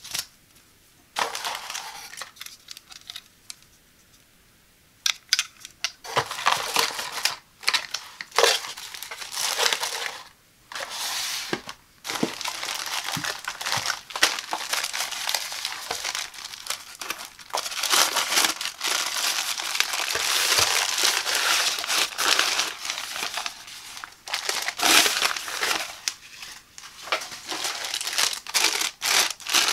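Plastic packaging crinkling and rustling as it is handled: an inflatable air-column cushion bag and a clear plastic bag around a folded tripod. A paper leaflet rustles briefly near the start, then a few seconds later the crinkling becomes almost continuous, with short pauses.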